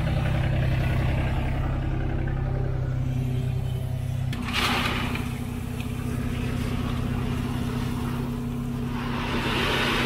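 Machine engines running steadily while sand-and-gravel aggregate pours from a loader bucket into a skid-steer concrete mixer attachment, its rushing hiss swelling about four and a half seconds in and again near the end. The engine note changes just before the first pour.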